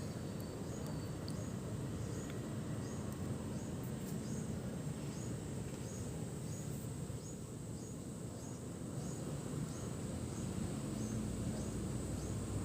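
Monsoon wind rumbling steadily in low tones, swelling and easing slowly. A faint, high, short chirp repeats about every half-second above it.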